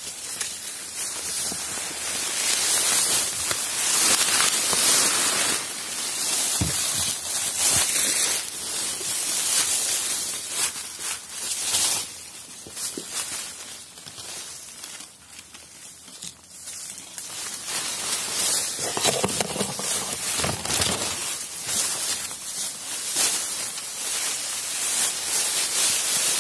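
Footsteps crunching through thick dry bamboo leaf litter, with leaves and stems rustling and crackling as they brush past. It goes quieter for a few seconds in the middle, then picks up again.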